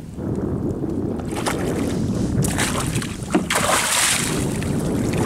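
A hooked wahoo thrashing and splashing at the surface beside the boat as it is gaffed, the splashing loudest from about three and a half seconds in. A steady low rumble of wind on the microphone runs underneath.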